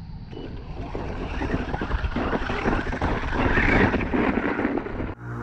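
GPtoys Rirder 5 S611 brushless 4x4 RC ATV driving over loose, rough dirt toward the microphone, its motor and tyres getting louder as it comes close. About five seconds in it cuts off abruptly into music.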